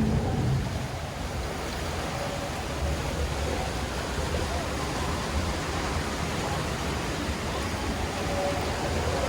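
Steady rush of whitewater rapids around a round river-ride raft, an even noise with no breaks.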